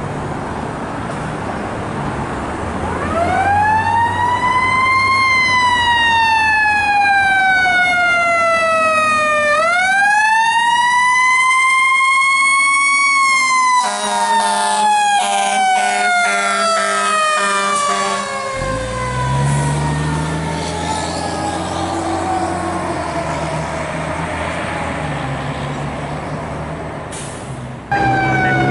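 Fire engine responding: its engine rumbles as its siren winds up twice and then glides slowly down in pitch. A few seconds of horn blasts come about halfway through, and the engine note rises as the truck pulls away.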